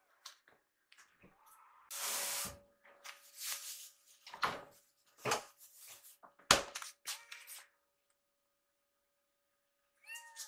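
Kitchen clatter as kittens' food is prepared: a series of knocks and clicks, the loudest about six and a half seconds in, a short rustle about two seconds in, and a faint steady hum from about a second in. A kitten gives a short meow near the end.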